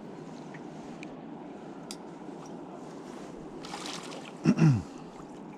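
Steady rush of flowing river water, with a short burst of louder noise a little before four seconds in and, about four and a half seconds in, a brief loud sound whose pitch falls.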